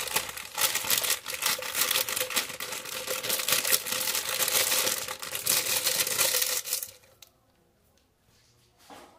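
Plastic bag of oats crinkling and rustling as it is handled and shaken out over a blender jar, a dense crackle that stops abruptly about seven seconds in.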